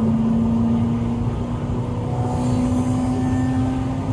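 V8 engine of a homemade Ford GT40 replica heard from inside the cabin, pulling steadily at high speed with its note rising slowly, over a low rumble.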